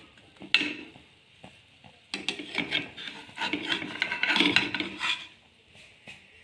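A plastic spatula scraping and knocking against a metal frying pan as a slice of egg-coated toast is lifted out. There is a sharp tap about half a second in, then about three seconds of busy scraping.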